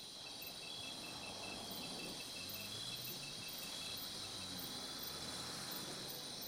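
Night-time insect chorus of crickets chirping: several steady high trills, with a faster pulsing chirp that stops about halfway through.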